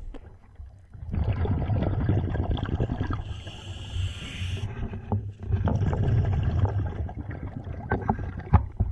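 Scuba diver breathing through a regulator underwater: a rush of exhaled bubbles, a hiss of inhalation about three seconds in, then another rush of exhaled bubbles.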